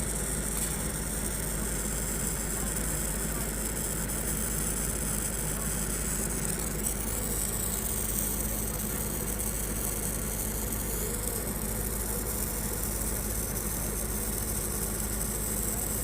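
An engine idling steadily, with a constant high hiss over it.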